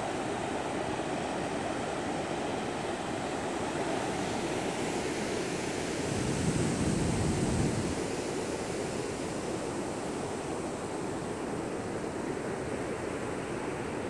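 Ocean surf breaking on a sandy beach, a steady rushing wash of waves, with a louder low rumble lasting about two seconds partway through.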